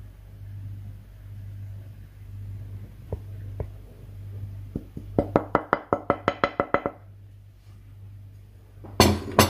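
A wooden spoon tapping against a ceramic bowl to knock flour into a pot: two light taps, then a quick run of about a dozen ringing knocks. A loud clatter near the end, over a low steady hum.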